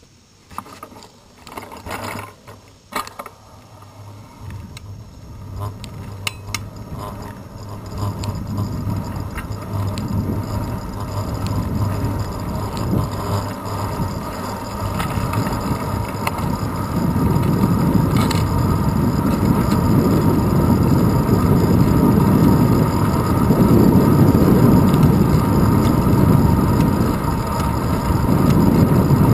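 Bicycle setting off: a few sharp clicks and knocks from the bike in the first seconds, with the rear hub's freewheel ratchet clicking. Then wind buffeting the handlebar-mounted camera's microphone and tyre rumble grow steadily louder as speed builds, and stay loud for the second half.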